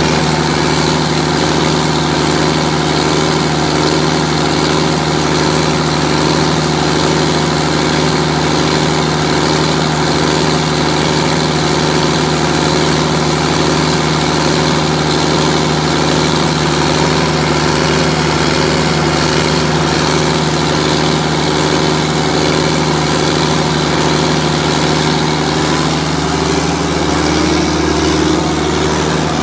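Diesel engine of a used 180 kVA John Deere generator set running steadily at constant speed, with a slight change in its tone near the end.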